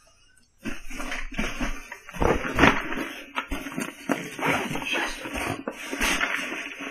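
Rustling and small clatters of a hand rummaging through a fabric bag, starting about half a second in and going on irregularly.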